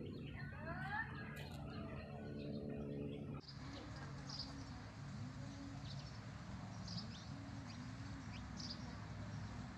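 Birds chirping over a steady outdoor hiss, with short high chirps scattered through; the background changes abruptly about three and a half seconds in.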